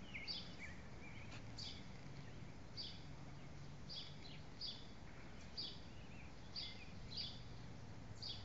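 Faint bird chirps: short high notes repeating roughly once a second over a low, steady background hum.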